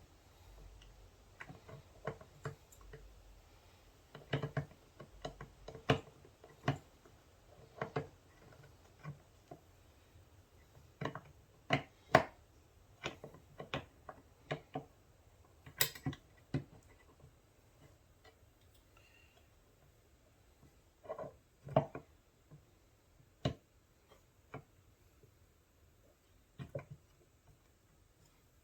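Irregular clicks, clinks and light knocks of metal parts and tools being handled and fitted during reassembly of a Peerless 206 transmission, in scattered clusters with short quiet gaps.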